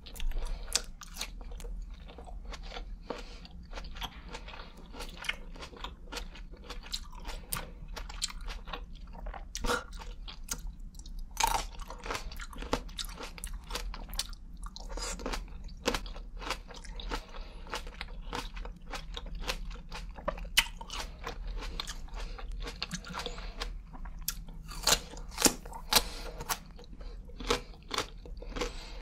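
Close-miked eating of green grapes: bites and chewing, with many sharp irregular crunches and clicks, a few louder ones around the middle and near the end.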